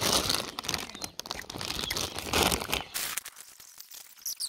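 Loud crackling and rustling right at the microphone for about three seconds, then fainter scattered crackles.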